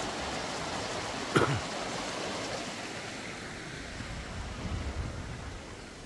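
Shallow mountain stream rushing over rocks, a steady rush that grows fainter toward the end, with one brief sharp thump about a second and a half in.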